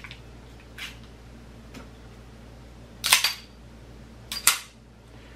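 Metal clicks and clacks of a 1911 single-action semi-automatic pistol's action being worked by hand. A few faint clicks come first, then a loud clack about three seconds in and two sharp clacks about a second later.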